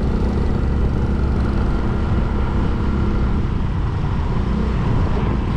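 Motorbike being ridden at a steady speed: the engine runs evenly under a steady low rush of wind and road noise.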